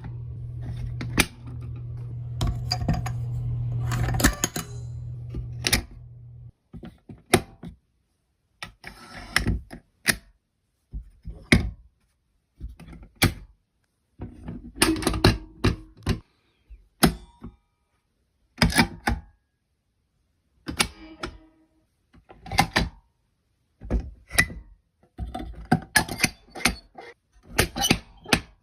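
Irregular knocks and clicks, one or a few at a time with silent gaps between them. A low steady hum underlies the first six seconds or so and cuts off suddenly.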